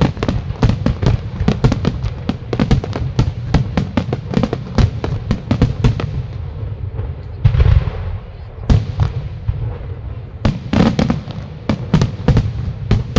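Aerial fireworks shells bursting in a rapid salvo of sharp reports for the first six seconds. A heavier boom comes about seven and a half seconds in, followed by sparser bursts.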